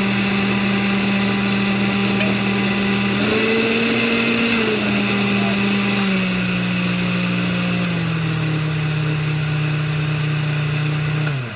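Oster countertop blender motor running steadily while pureeing a fermented pepper mash. Its pitch rises a little about three seconds in, falls back a couple of seconds later, and drops lower around eight seconds. Near the end it is switched off and winds down.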